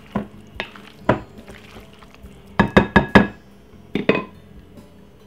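Wooden spoon knocking against the side of a glass mixing bowl while stirring a salad, with a short glassy ring after the harder knocks. There are a few single knocks, then a quick run of four about two and a half seconds in, and two more about a second later.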